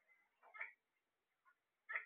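Caged Alexandrine parakeets giving a few short squawks: a quick pair about half a second in and a sharper one near the end.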